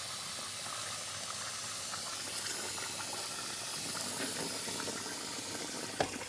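Cold water running from a brass kitchen faucet into a pot of freshly boiled manicotti, a steady hiss of filling water that rinses the pasta to stop it cooking. A sharp knock comes near the end.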